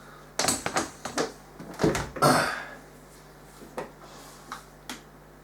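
Handling noises: a quick run of clicks and knocks, a heavier thump about two seconds in with a short rustle after it, then a few light ticks, over a faint steady hum.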